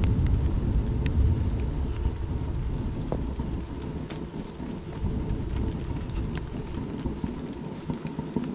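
Steady rain falling on foliage and grass, with scattered close drops tapping and a deep low rumble that is strongest over the first two seconds and eases off later.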